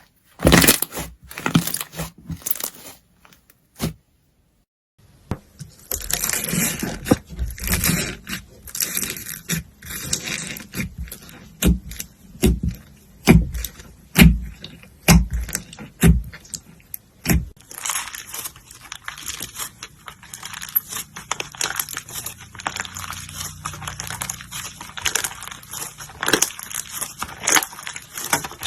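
Slime being handled: sticky clicks and crackly pops, dropping out briefly about four seconds in, then turning into denser, steadier crackling later on.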